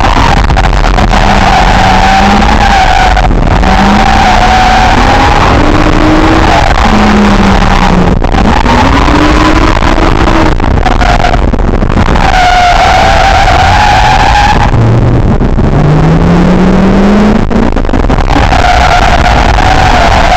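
Nissan S13 drift car's engine revving up and down while the tyres squeal in long, repeated stretches as the car slides, heard from inside the cabin.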